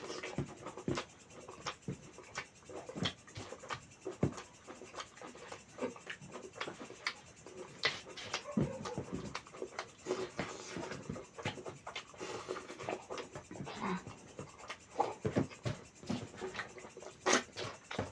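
Close-miked eating: chewing and wet mouth and lip smacks on mutton curry and rice, a string of short, irregular clicks.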